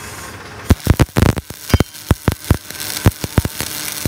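Stick-welding arc crackling on a steel hydraulic cylinder joint: a steady sizzle broken by many sharp, irregular pops as the electrode lays the weld bead.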